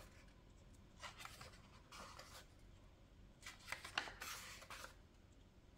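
Faint rustling of paper as pages of a softcover workbook are turned, several brief rustles with the loudest about four seconds in.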